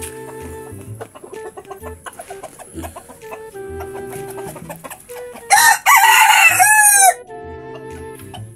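Bantam rooster crowing once, loud, a call of about a second and a half that starts about five and a half seconds in and ends on a falling note, over soft background music.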